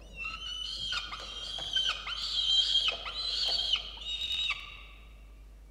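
Peregrine falcon chick calling: a run of about five loud, drawn-out, piercing wails, several of them dropping sharply in pitch at the end, the begging call of a nestling.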